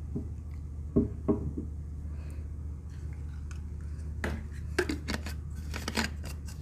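Scattered light clicks and taps of tableware being handled on a table: two about a second in, then a quicker cluster between about four and six seconds. A steady low hum runs underneath.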